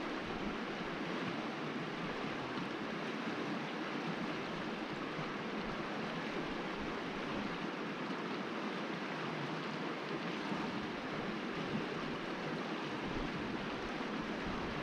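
Steady rushing of creek water, an even wash of noise with no breaks.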